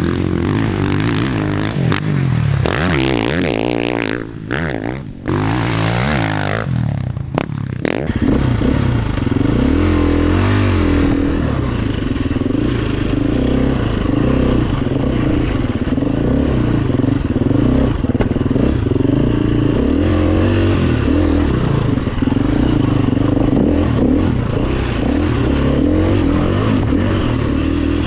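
Dirt bike engine being ridden, its note rising and falling with the throttle. The first several seconds carry harsh noisy bursts over the engine, then it settles into a steadier run.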